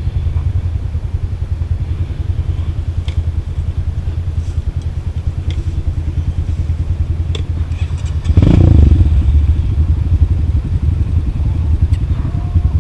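Off-road motorcycle engine running with a steady pulsing rumble, with a few sharp clicks and clatters over rough ground. About two-thirds of the way through the engine surges suddenly louder as the throttle opens, then keeps running at the higher level.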